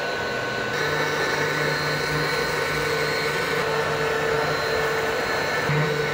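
Core XY CNC router's spindle running with a steady whine as its end mill cuts a wooden workpiece.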